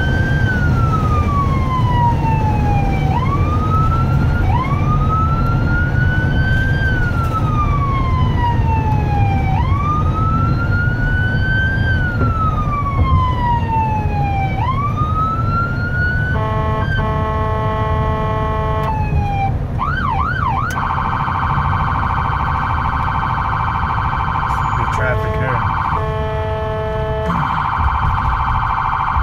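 Ambulance siren heard from inside the cab. It runs a slow wail, each cycle rising quickly and falling slowly over about five seconds. About 16 seconds in it switches to a steady horn-like blare, with a brief fast warble in the middle, and breaks into short blasts near the end, over a constant engine and road rumble.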